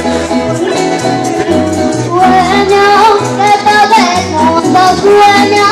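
Venezuelan llanero music in entreverado rhythm played by a band, with a girl's voice singing long held notes from about two seconds in.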